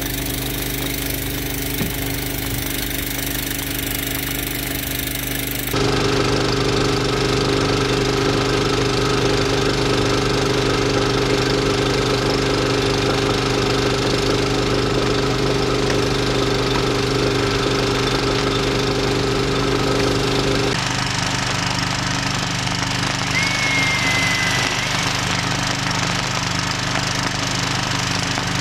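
A fire engine's motor running steadily to drive its pump, with the hiss of a hose spraying water. It gets abruptly louder about six seconds in and changes its hum again about twenty seconds in.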